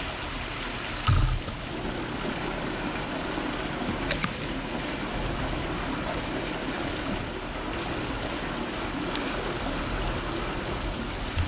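Steady outdoor background noise with no clear tones, with a brief low thump about a second in and a short sharp click around four seconds in.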